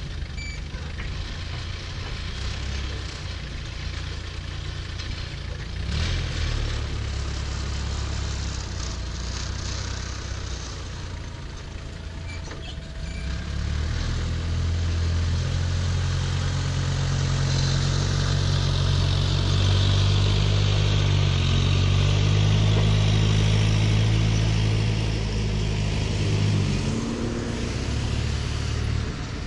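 A heavy vehicle's engine running, rising to a louder, steadier, higher note about halfway through and easing off again near the end.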